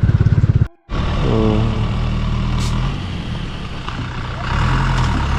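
Motorcycle engine running under way, a fast even pulsing, which cuts off abruptly under a second in; then an engine runs steadily again, with a brief rise in pitch shortly after.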